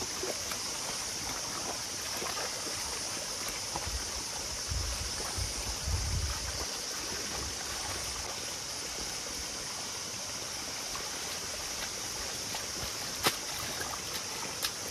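Wet mud and water sloshing as a flooded rice-paddy terrace is levelled by hand with a board and waded through, over a steady hiss like running water. A single sharp click sounds near the end.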